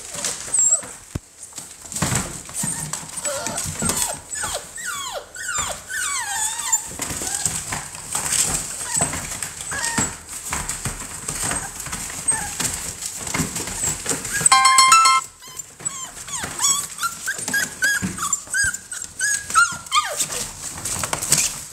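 American Bully puppies whining and yelping in short rising and falling cries, with one louder, held cry about two-thirds of the way in. Small paws scratch and scrabble on the plastic pool floor among rustling bedding.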